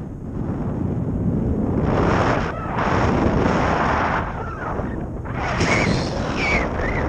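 Wind buffeting an action camera's microphone in paraglider flight: a loud rushing noise that swells and eases in gusts.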